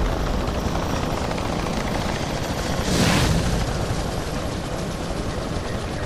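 A helicopter-like rotor whir sound effect for an animated drone, running steadily, with a whoosh about three seconds in.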